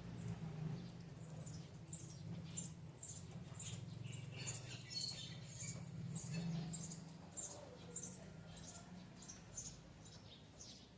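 Small birds chirping, repeated short high chirps about twice a second, over a low steady rumble that fades away.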